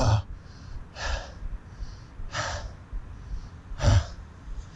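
A man breathing hard, three deep breaths about a second and a half apart, winded from a long physical struggle.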